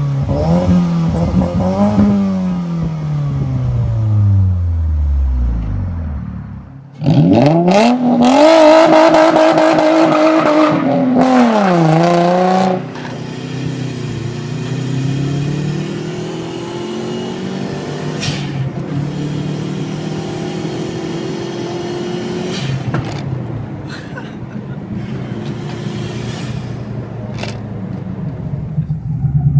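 Car engine heard through its exhaust. Its pitch falls away over the first few seconds. About seven seconds in it revs up sharply, holds high revs for about four seconds and drops back. Then it gives way suddenly to a quieter engine note with slow rises and falls in revs.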